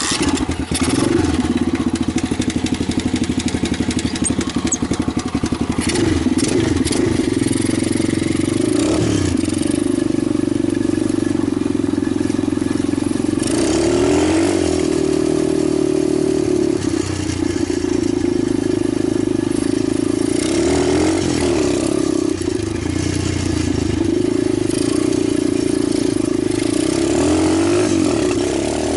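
Italjet 125cc pit bike engine running steadily, its revs raised briefly several times.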